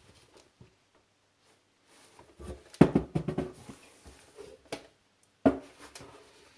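Clatter and knocks of hard objects being handled and set down: a quick run of knocks about two and a half seconds in, then single sharp knocks near five and five and a half seconds.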